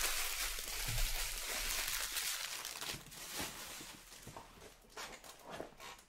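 Trading-card packaging crinkling and rustling for the first few seconds as it is handled, then quieter handling with a few light clicks.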